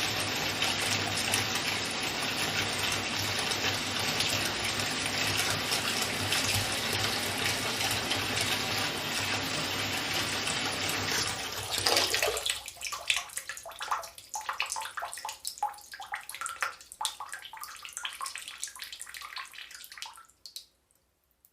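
Water from a tap running steadily into a bathtub as it fills. About halfway through the flow stops abruptly, leaving scattered drips and small splashes into the bath water that fade out near the end.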